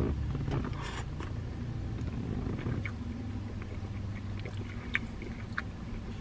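A mouthful of teriyaki chicken and cabbage being chewed, with a few scattered soft clicks, over a low steady hum in a car cabin.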